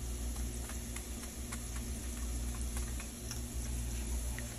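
Light, irregular ticks and clicks of a wire whisk and glass bowl against a nonstick frying pan as beaten eggs are poured in and whisked, over a steady low hum.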